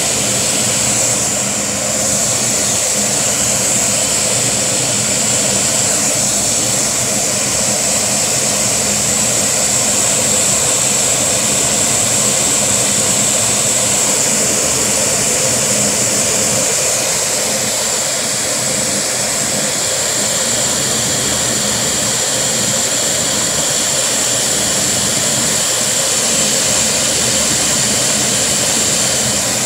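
Vacuum cleaner running steadily with a constant high whine, its suction driving a Lego vacuum engine at a very low idle.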